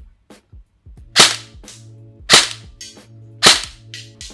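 Krytac Trident MK2 airsoft electric gun firing three single semi-automatic shots about a second apart, each a sharp crack with a fainter tap shortly after it.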